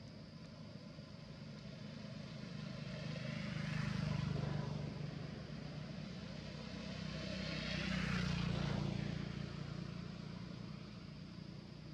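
Two motor vehicles pass by one after the other. Each engine-and-tyre sound swells up and fades away over a few seconds, loudest about four and about eight seconds in.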